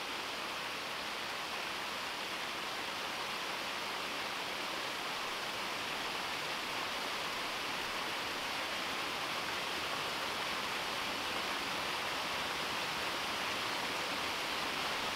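Small waterfall splashing over rocks into a pond: a steady, even rush of falling water.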